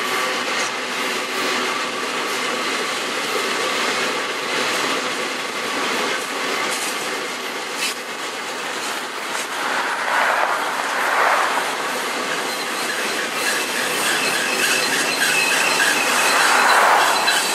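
Freight train of flatcars and container cars rolling past: steady clatter and rush of steel wheels on the rails, with louder surges about ten and sixteen seconds in and a thin, high wheel squeal in the second half.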